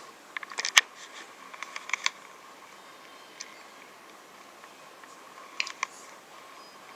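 Irregular sharp clicks and knocks from a handheld camera being moved and handled: a flurry in the first two seconds, loudest a little under a second in, and a few more near the end, over a faint steady whine.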